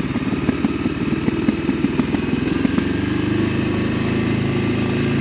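Voge motorcycle engine running at low revs on a downhill, with uneven firing pulses, then settling into a steadier, slightly rising drone about three seconds in.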